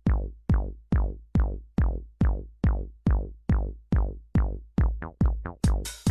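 Electronic music: a deep drum-machine kick, each hit sliding down in pitch, beats about two and a half times a second, speeds up into a quick roll about five seconds in, then a hissy high cymbal layer comes in with the beat.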